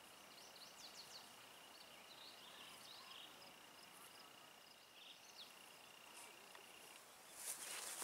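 Faint summer field ambience: scattered distant bird chirps over a steady thin high tone. About seven seconds in, louder rustling through grass sets in.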